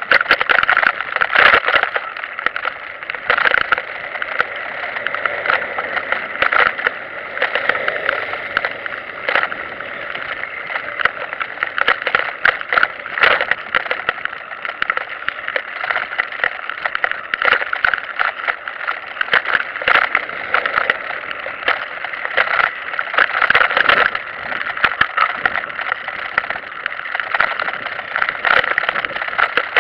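Steady rattle and rumble of a recumbent trike rolling over stone paving, picked up through the vibration of its mounted camera, with many small knocks throughout.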